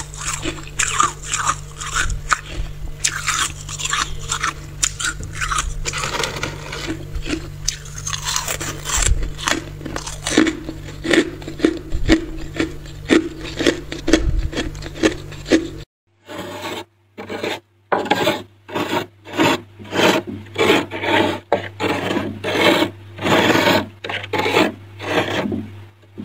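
A spoon scraping thick, packed freezer frost in repeated rasping strokes. There is a short break about sixteen seconds in, after which the strokes come more slowly and evenly.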